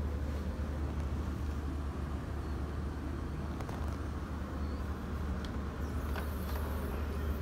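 Steady low hum inside a yacht's saloon. A few faint clicks about six seconds in as a wooden sideboard lid is lifted.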